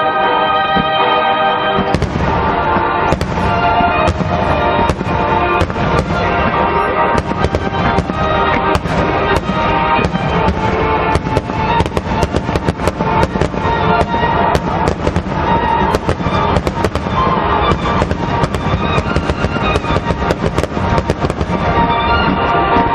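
Aerial fireworks exploding in a rapid barrage. The sharp bangs start about two seconds in and come thicker and faster through the middle, with music playing underneath.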